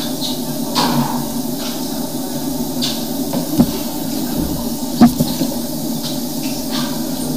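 Wet/dry vacuum motor running steadily, used for suction on a blocked urinal drain, with two sharp knocks about three and a half and five seconds in.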